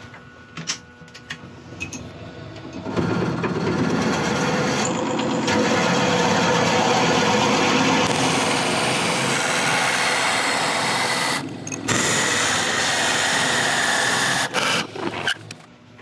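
Forstner bit boring into the end grain of a monkey puzzle wood blank turning on a wood lathe: a loud, steady cutting noise that starts about three seconds in, breaks off briefly near twelve seconds, and stops just before the end.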